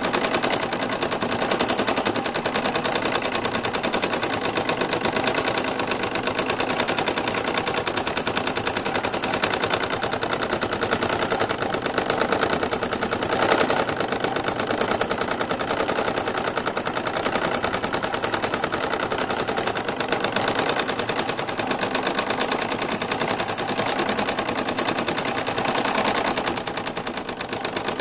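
Brother Innovis NV1250 embroidery machine stitching a quilting pattern through a quilt in its hoop: a steady, rapid clatter of needle strokes.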